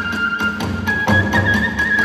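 Kagura hayashi music: a transverse bamboo flute holds a high note, stepping up just before a second in, over fast even beats of hand cymbals and drums, about six strokes a second, with heavier big-drum strikes between one and one and a half seconds in.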